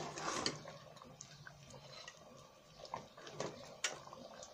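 Thick masoor dal boiling in a steel pot, soft bubbles plopping and gurgling, with a few sharp clicks of a metal ladle against the pot.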